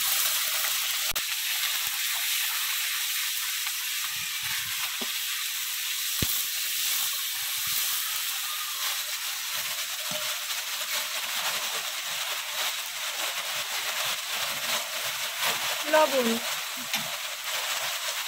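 Steady sizzle of a tempering frying in hot hilsa fish oil in a pan, with panch phoron and green chillies. A few light knocks from a utensil come now and then.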